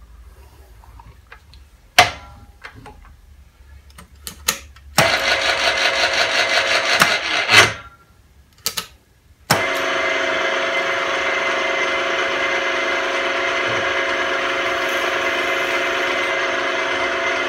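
A milling machine's spindle motor is started, runs for about three seconds and is switched off, then a second and a half later is started again and keeps running steadily with a steady hum. Before it starts there are a few clicks and a sharp knock about two seconds in, from work on the machine's table and controls.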